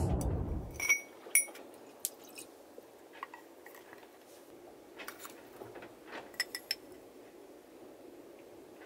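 Light metallic clinks and clatter from an aluminium stovetop moka pot being handled and filled: water poured in from a plastic bottle, then a spoon scooping ground coffee from a glass jar. There are two sharp ringing clinks about a second in and a quick run of clinks near the end.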